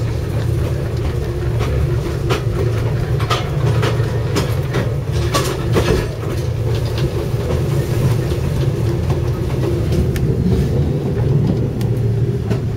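Wabash caboose rolling along the track, heard from inside the car: a steady low rumble with scattered clicks and knocks from the wheels and car body.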